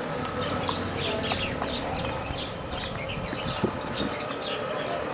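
Small birds chirping in many short, overlapping high calls, over a steady hum.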